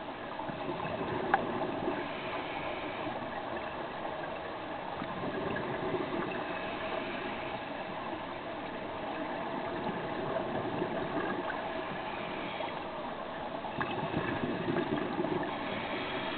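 Scuba regulator exhaust bubbles heard underwater, a bubbling wash that swells every few seconds with the divers' exhalations. A single sharp click about a second in.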